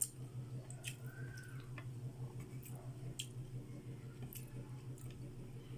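Close-up mouth sounds of a person eating: wet chewing and smacking, with scattered short clicks. A low steady hum runs underneath.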